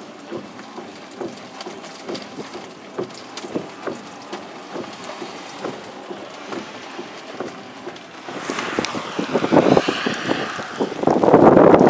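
Storm wind and rain on the camera's microphone: a steady rush dotted with small ticks of raindrops. Gusts build about eight seconds in and are loudest near the end.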